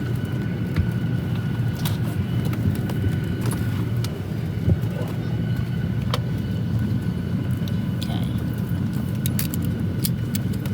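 Steady cabin hum inside a Boeing 737-800, a low rumble with a faint constant high whine over it, broken by a few sharp clicks and knocks, most of them in the last couple of seconds.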